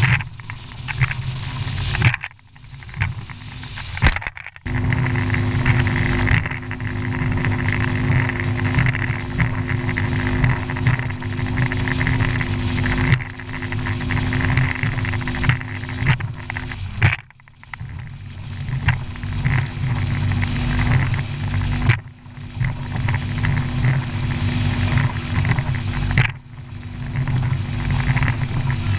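Bass boat's Mercury outboard motor running at speed, a steady drone, over heavy wind rumble on the microphone as the boat crosses choppy water. The sound drops away briefly several times.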